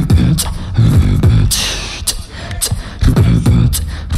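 Beatboxing into a microphone through a PA: deep kick-drum thumps and sharp snare and hi-hat clicks in a steady groove, with a hissing sound about a second and a half in.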